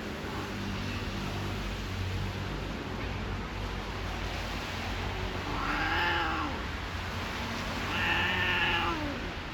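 Stray cats caterwauling while mating: two long, drawn-out yowls, one about six seconds in and another around eight seconds, each rising then falling in pitch. A steady low hum runs underneath.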